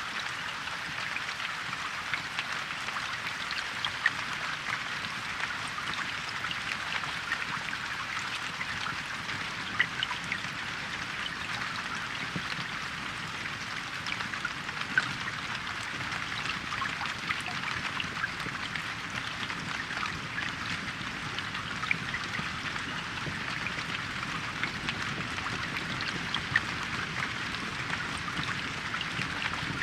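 Steady rain falling in a forest, an even patter of many small drops with a few louder individual drops hitting close by.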